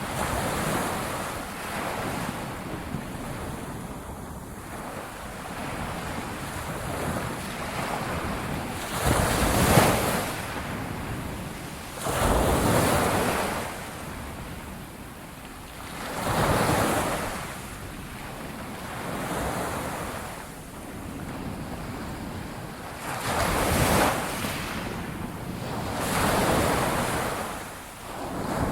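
Ocean surf: waves breaking in swelling surges every few seconds over a steady wash of water, the loudest break about ten seconds in.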